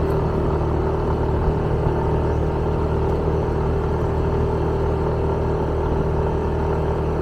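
Motorbike engine running at a steady speed while riding uphill, heard from on the bike, with an even rumble and no marked revving.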